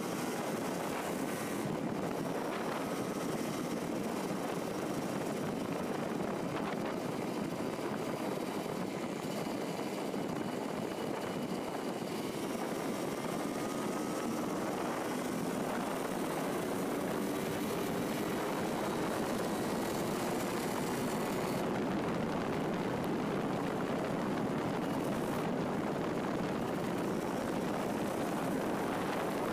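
Yamaha DT200 single-cylinder two-stroke motorcycle engine running under way, mixed with a steady rush of wind and road noise. The engine note rises in places as the bike accelerates.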